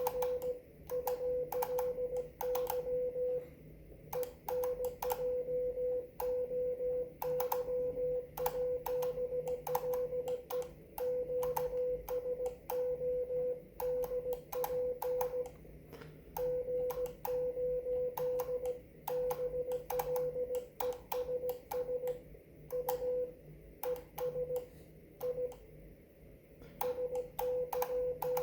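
Morse code (CW) from a ham radio transceiver: a tone of about 500 Hz keyed on and off in dots and dashes, with short gaps between characters and words. Sharp clicks come in step with the keying.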